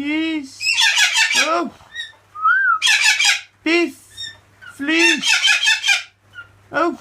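Pet parrots squawking over and over, a loud harsh call about every second, with one short whistled note between them about two and a half seconds in.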